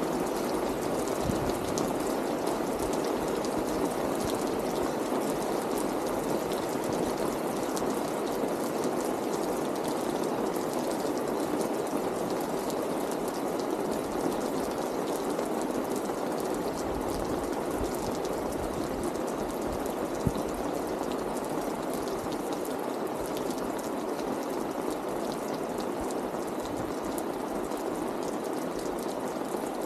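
Steady rain, a continuous even hiss, with scattered nearer drops ticking. One sharper tap about twenty seconds in.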